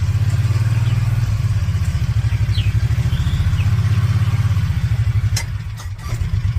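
A vehicle engine running at low speed with a steady low pulsing. Near the end it eases off briefly and two or three sharp knocks sound.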